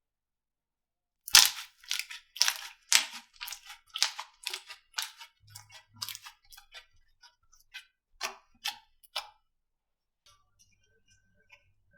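Slime being pressed and squeezed by hand, giving sharp crackling pops about twice a second. The first pop is the loudest, and they fade and thin out before stopping.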